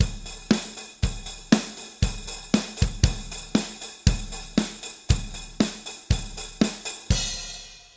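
Multitracked drum kit playing a steady beat of about two hits a second: kick, snare and hi-hat, with parts of the kit replaced or reinforced by drum samples. Near the end it stops on a cymbal that rings out and fades.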